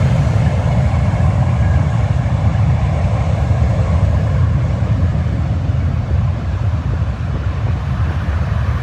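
Jet airliner's engines, a Spirit Airlines Airbus A320-family jet, giving a heavy low rumble as it passes, easing slowly in loudness.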